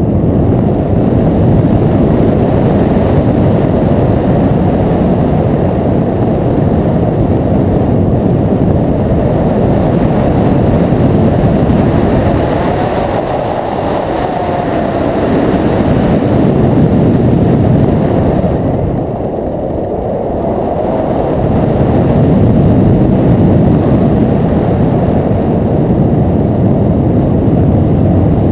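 Airflow buffeting the microphone of a camera mounted on a hang glider's frame in flight: a heavy, steady wind rumble that eases briefly twice.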